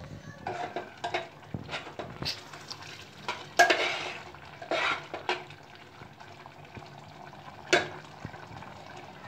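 A spoon stirring thick moong dal in a metal pot: irregular clinks and scrapes of the spoon against the pot, with the loudest knocks about three and a half seconds in and again near the end.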